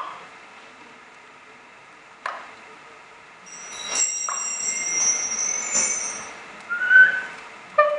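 A few sharp knocks spaced a second or two apart, with high ringing tones sounding for a couple of seconds in the middle and a short gliding tone near the end.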